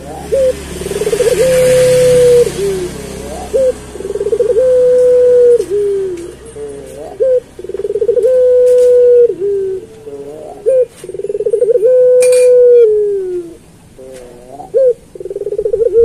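Puter pelung (domestic ringneck dove) cooing, with about four full phrases. Each phrase is a short rising note, a fast stuttering build that swells louder, then a long drawn-out held note that slides down at its end.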